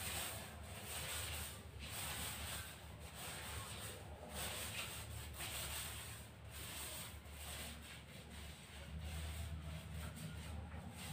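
Paint roller on an extension pole being rolled up and down a wall: a soft, repeated rubbing with each stroke.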